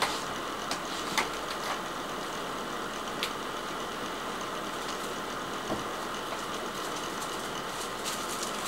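Steady background room noise, an even hum and hiss, with a few faint clicks about a second in and again near three and six seconds.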